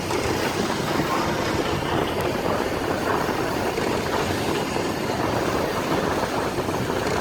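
Fishing boat under way: a steady rumble of motor and water rushing past the hull.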